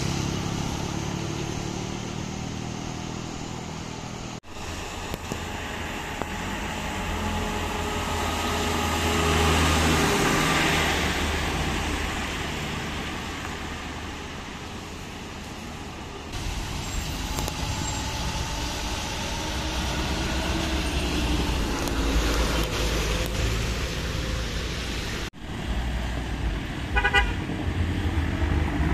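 Minibuses and other road traffic driving past on a mountain road, engines pulling hard, in several short clips with one vehicle swelling loud as it passes close. A horn sounds briefly near the end.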